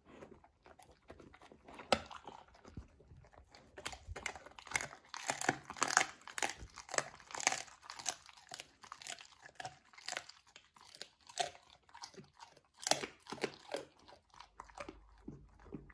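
A Labrador–golden retriever mix chewing a dog treat: irregular crunches and bites, coming thickest through the middle stretch.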